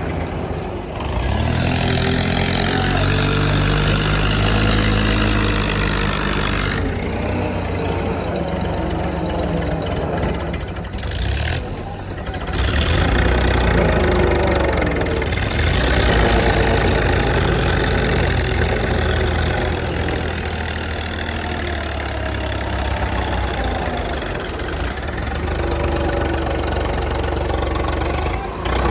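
Diesel engine of a JCB backhoe loader running under load, revving up and settling back several times as it digs and loads soil.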